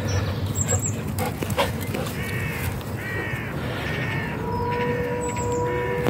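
A crow cawing, a series of about five harsh calls roughly a second apart, starting about two seconds in.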